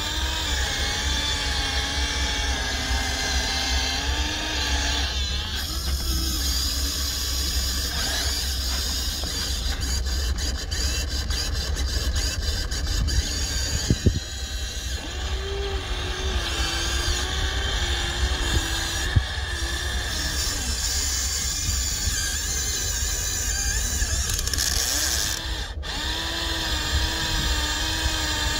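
Huina 1593 remote-control excavator's electric motors whining as the arm and bucket dig, the pitch wavering up and down with the load, with a sharp click about halfway through.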